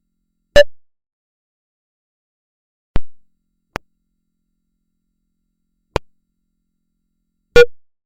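Five short synthetic blips at uneven intervals, separated by dead silence; the first and last are the loudest, with two faint clicks between them. Each cuts in sharply and fades within a fraction of a second.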